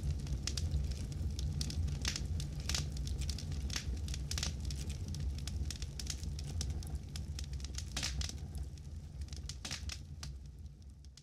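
Campfire burning: a steady low rumble of flames with frequent sharp crackles and pops of burning wood, fading out near the end.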